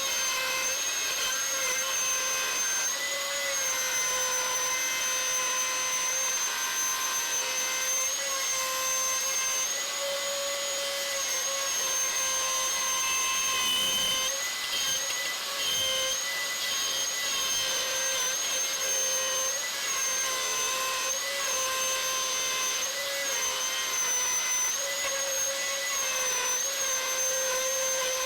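Router in a router table running with a bearing-guided straight bit, trimming a wooden body piece flush to an MDF template. It is a steady high motor whine that dips briefly in pitch now and then as the bit takes the cut.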